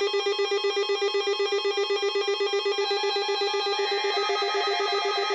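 Electronic alert tone: a buzzy tone of steady pitch that pulses rapidly and evenly, like a trilling telephone ring. A brighter, higher layer joins it about four seconds in.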